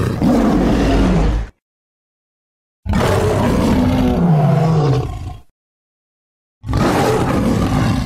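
Three big-cat roar sound effects in turn, each a couple of seconds long and cut off sharply, with silence between them; the middle roar slides down in pitch.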